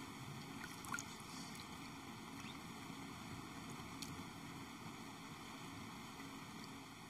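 Feet being washed by hand in a basin of water: faint, occasional small splashes and trickles over a steady room hiss.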